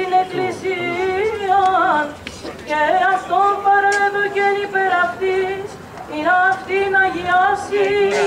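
A single voice singing Byzantine chant of the Greek Orthodox wedding service: long held notes decorated with ornamented turns, with short breaks about two seconds and six seconds in.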